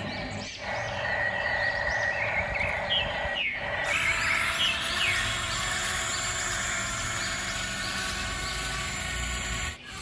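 Outdoor nature ambience of birds chirping over a steady background, with brief dropouts about half a second in, around three and a half seconds, and near the end.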